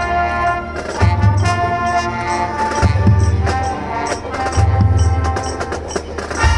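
High school marching band playing: sustained brass chords over low bass notes, with drum and cymbal strikes.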